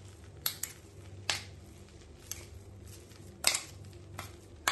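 Metal spoon scraping and clinking against steel while ground coconut paste is spooned from a steel container into a steel kadai: a run of short sharp clinks and scrapes, the longest about three and a half seconds in, over a low steady hum.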